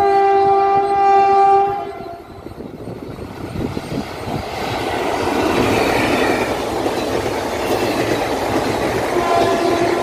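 Horn of a WAP-4 electric locomotive sounding one loud blast of about two seconds with several tones together, then the express's coaches rushing past on the rails, the sound building from about four seconds in. A fainter horn tone sounds again near the end.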